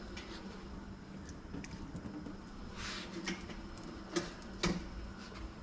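Kitchen room sound: a steady low hum with a few light clicks and knocks of kitchenware being handled.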